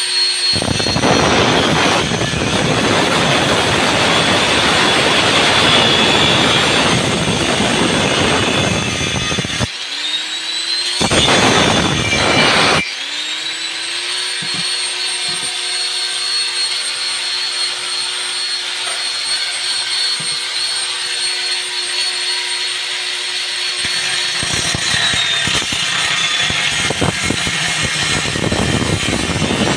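Handheld electric power tool working metal in long loud stretches, with its motor spinning free between them as a steady whine that rises in pitch as it speeds up again, about ten and thirteen seconds in.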